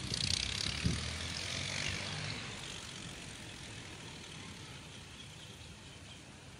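Storm wind rushing through shrubs, with a low rumble. It is loudest in the first two seconds, then slowly dies away.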